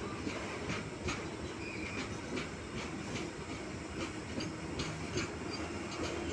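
Passenger train running at high speed: a steady rumble of wheels on rail, with repeated sharp clacks as the wheels cross rail joints.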